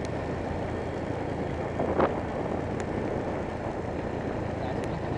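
Steady running noise of a motorbike on the move: an even rumble of engine, road and wind, with a brief knock about two seconds in.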